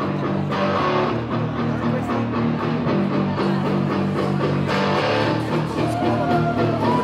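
Live rock band playing an instrumental passage: electric guitars over a steady bass guitar line, with drums and cymbal washes, heard from the crowd.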